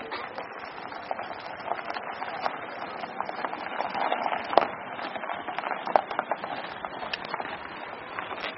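Footsteps crunching on a gravel car park, irregular small clicks and a couple of sharper knocks over a steady outdoor hiss.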